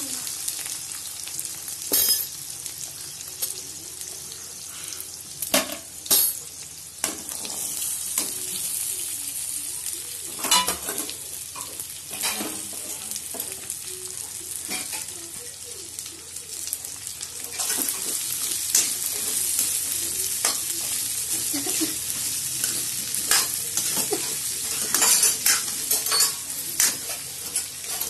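Diced potatoes and cut green beans sizzling in hot oil in a kadhai, a steady frying hiss. Now and then a steel ladle stirring against the pan makes sharp clinks and scrapes.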